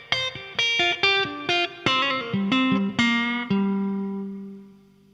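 Guitar playing a run of single picked notes that step downward in pitch, the last one left to ring and die away near the end.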